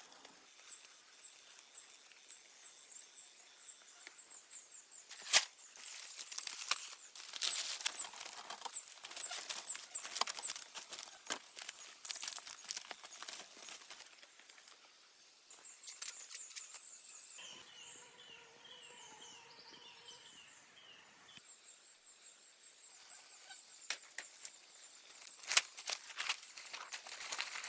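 Dry palm-leaf thatch crackling and rustling as it is handled and pressed into place, with scattered sharp snaps, the loudest about five seconds in and another near the end. A run of quick repeated chirps comes in about two-thirds of the way through, and a faint steady high whine sounds at the start and end.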